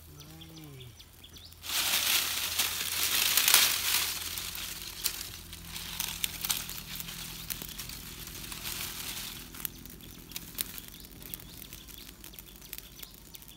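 Dry twigs and leaves catching in a small campfire. The fire flares up suddenly about two seconds in, then crackles and pops as the flames die down.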